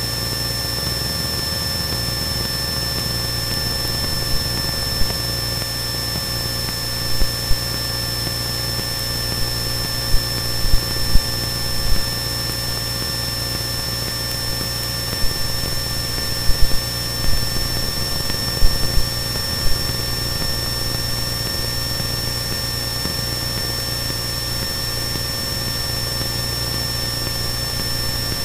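Cessna 172N's four-cylinder Lycoming engine and propeller in steady cruise, a constant drone with the mixture leaned. A few brief low thumps come and go between about 4 and 20 seconds in.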